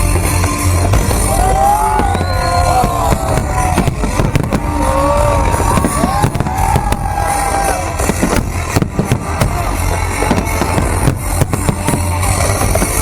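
Fireworks display: shells bursting with a stream of sharp bangs and crackles, over loud music playing throughout.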